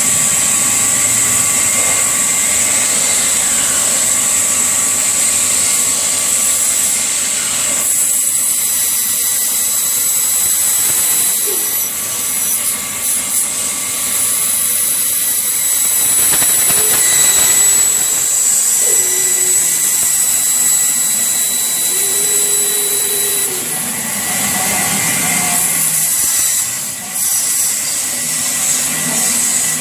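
Band saw running with a steady high whine while small pieces of wood are fed through the blade and cut.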